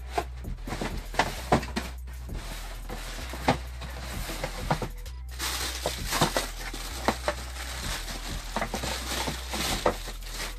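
Cardboard shoebox being handled and opened, with sharp knocks and taps of the box. From about five seconds in, tissue paper rustles steadily as the sneaker is unwrapped, with more taps mixed in.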